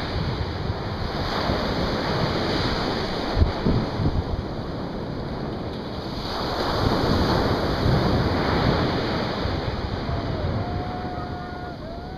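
Ocean surf breaking and washing up the beach, swelling louder twice, with wind buffeting the microphone. There is a single thump about three seconds in.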